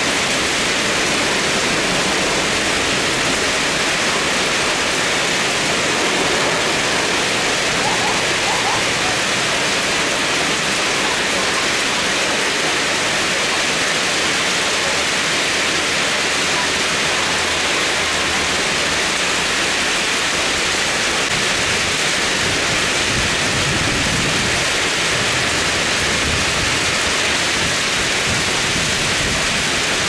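Heavy tropical rain pouring down, a dense, steady hiss with no let-up. A faint low rumble swells briefly about two-thirds of the way through.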